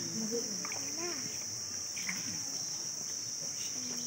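Steady high-pitched chorus of insects, with faint murmuring voices of onlookers in the first second or so.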